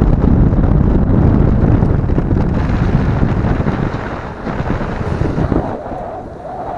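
Strong wind buffeting the microphone, a heavy low rumble that eases off over the last couple of seconds.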